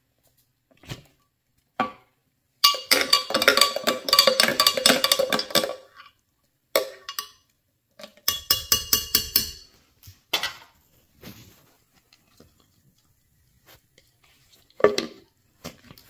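Metal spoon stirring and knocking inside a blender jar of thick syrup: two runs of rapid ringing clinks against the jar, the first about three seconds in and the second a little past halfway, with single clinks and knocks in between and near the end.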